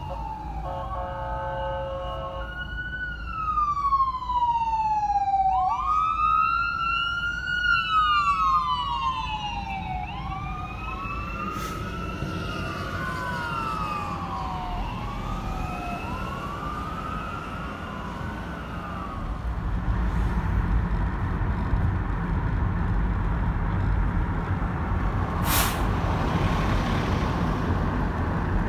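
Fire engine on an emergency run: a couple of seconds of steady horn blasts, then its siren wailing, each sweep falling slowly and rising again every few seconds. The siren fades away as the engine moves off, leaving steady traffic and wind noise with one sharp click near the end.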